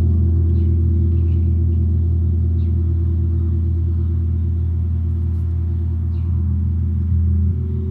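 Large tam-tam gong ringing with a deep, sustained hum that pulses and wavers as its tones beat together, slowly fading. Its pitches shift and briefly swell about seven seconds in.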